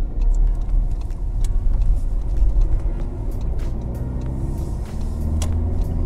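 Car engine and road noise heard from inside a VW Golf VII's cabin. The engine pitch rises between about two and five seconds in as the car pulls away after a right turn, with scattered small clicks from the tyres on the wet road.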